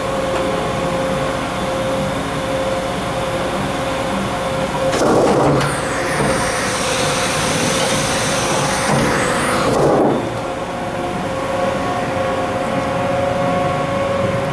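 Makino a51nx horizontal machining center running with a steady hum and a constant tone. From about five seconds to ten seconds a louder rush of mechanical noise rises over it while the automatic pallet changer lifts and swings the pallets around.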